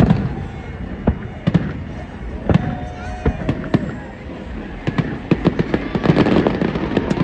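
Aerial fireworks shells bursting in a series of sharp bangs at irregular intervals, about one or two a second. In the last couple of seconds they thicken into a denser cluster of bangs and crackle.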